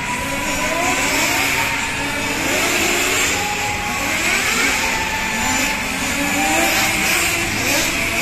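Several nitro-powered 1/10 RC touring cars such as the Kyosho FW05T racing, their small glow engines whining and revving up and down in many overlapping pitch sweeps as they accelerate and back off through the corners.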